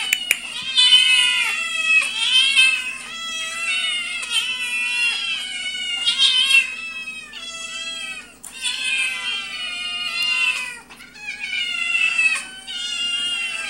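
Several cats, adults and kittens, meowing together: many high, overlapping mews that rise and fall in pitch in an almost continuous chorus.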